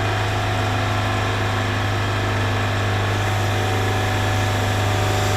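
HRO Seafari reverse-osmosis water maker running on test with a newly fitted high-pressure manifold block: a steady, even machine hum with a strong low drone.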